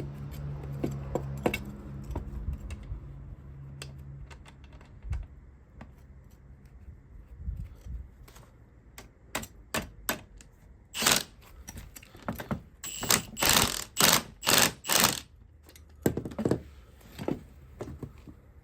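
Ratchet wrench clicking in short strokes, with metal tools clinking against a car's coil-spring strut and spring compressor. The clicks are scattered at first, then come in a fast run of strokes about halfway through.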